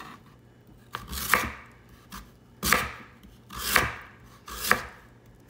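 Ceramic knife cutting through raw sweet potato and knocking onto a plastic cutting board: four main cuts about a second apart, each a short slicing swish ending in a knock.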